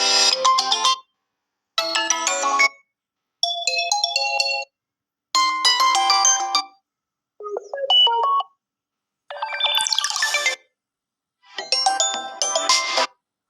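Vivo Y20 phone ringtone playing: a chiming electronic melody in short phrases of about a second each, separated by brief pauses, roughly one phrase every two seconds. The pitches change from phrase to phrase.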